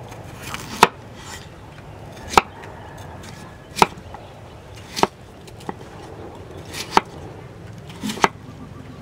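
A large kitchen knife cutting a peeled potato into chunks on a round wooden chopping board: about six sharp knocks of the blade striking the board, a little over a second apart.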